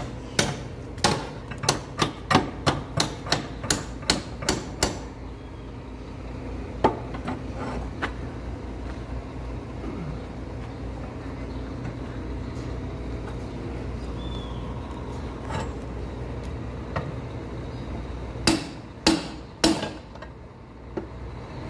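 Hammer blows on a truck's fender mounting while a fiberglass fender is fitted, about two a second for the first five seconds, then three or four more near the end, over a steady low hum.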